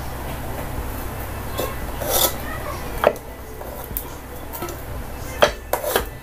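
Dishware being handled as biryani is served: a few sharp clinks and scrapes against a plate, the two loudest close together near the end, over a steady low hum.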